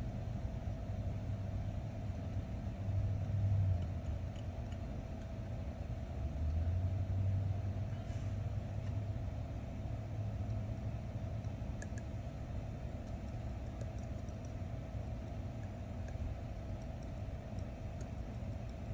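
Steady low background rumble with a constant mid-pitched hum, swelling twice in the first half. A few faint light ticks come about two-thirds of the way through.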